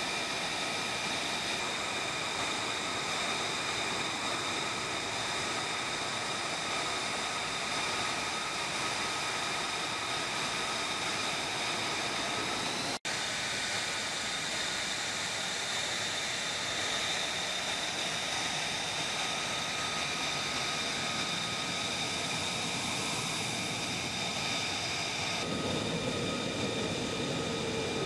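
F-35 Lightning II's F135 turbofan running steadily: a jet whine of several high, level tones over a rushing hiss. It cuts out for an instant about halfway through, and near the end a lower hum joins in.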